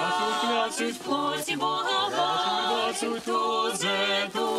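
A small group of carolers singing a Christmas carol a cappella in sustained, held notes.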